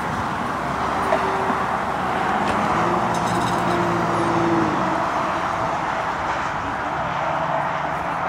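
Steady road-traffic noise, with a motor vehicle's engine hum coming up for a couple of seconds near the middle and again near the end.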